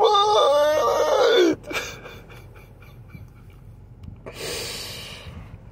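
A man crying aloud: a wavering wail that bends in pitch and falls away about a second and a half in, then quiet sobbing and a long breathy gasp near the end.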